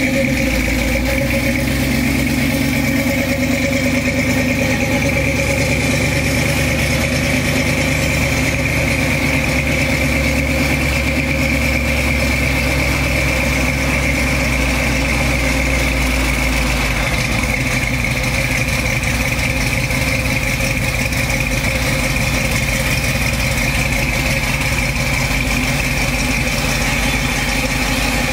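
1968 Chevrolet C10 pickup's engine idling steadily, its deepest note changing about two-thirds of the way through.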